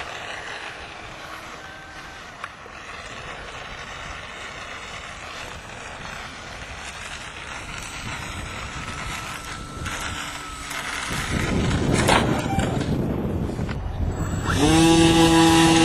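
Radio-controlled model airplane engine, faint and distant at first under wind noise on the microphone. Near the end it is suddenly loud and close, its pitch rising briefly and then holding steady.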